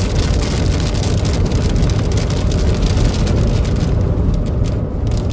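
Car driving with a loud, steady low rumble of wind and road noise.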